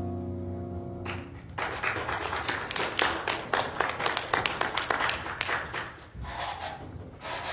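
The last held chord of a keyboard piece fades out. About a second and a half in, an audience starts clapping and applauds for several seconds, tapering off with a few last claps near the end.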